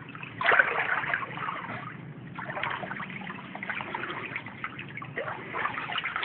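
Floodwater sloshing and splashing as people wade through it, coming in several irregular surges.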